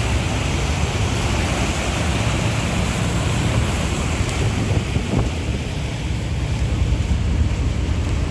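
Motorboat under way: a steady low engine drone under the rush of water past the hull, with wind buffeting the microphone.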